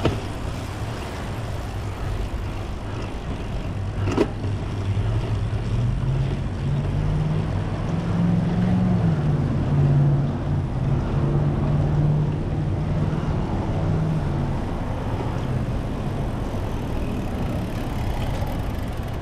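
Road traffic heard from a moving bicycle: a steady low rush of cars and tyres, with one vehicle's engine hum wavering up and down through the middle. A single sharp click comes about four seconds in.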